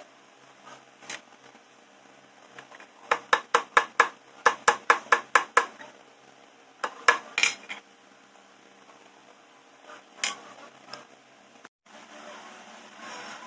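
Metal exhaust parts, a perforated baffle tube and steel washer, clinking and tapping together: two quick runs of sharp metallic taps, about five a second, then a few scattered single knocks.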